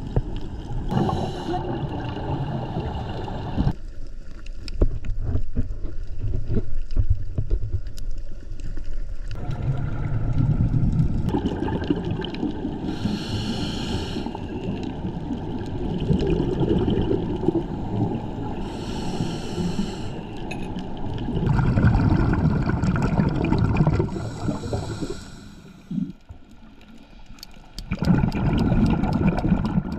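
Scuba regulator heard underwater: about four gurgling bursts of exhaled bubbles over a low rumble of water against the camera housing.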